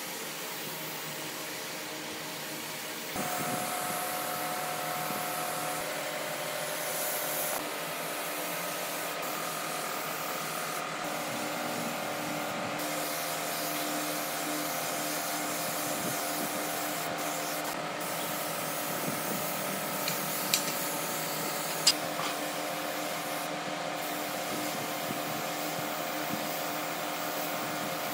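A power tool's motor running steadily, its pitch and tone shifting abruptly a few times, with two short sharp ticks near the end.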